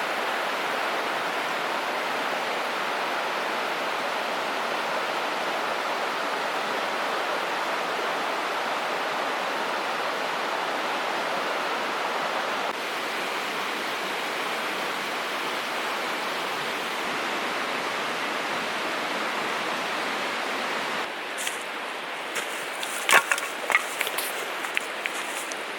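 Steady rushing noise that begins abruptly. About 21 seconds in it gives way to a quieter background with a run of sharp clicks and crackles.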